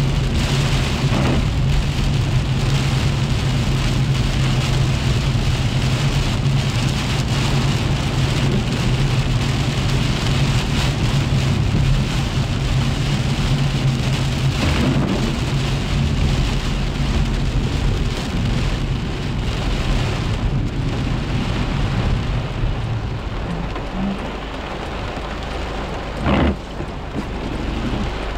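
Heavy rain pelting a car's roof and windshield, heard from inside the cabin, over a low steady hum. The hum and the rain noise ease off after about 23 seconds, and one short knock sounds near the end.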